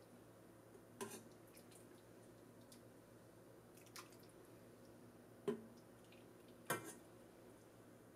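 Metal ladle and spoon clinking against a ceramic bowl and a steel pot while serving soup, with soft wet sounds of the soup: four short clinks, the last two loudest.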